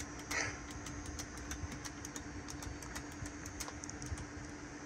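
A steady electrical hum from a powered-up sound system, with faint irregular clicks over it.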